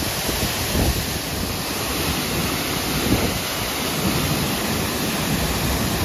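Chitrakote Falls crashing into its plunge pool: a loud, steady rush of falling water, with wind buffeting the microphone in low, uneven gusts.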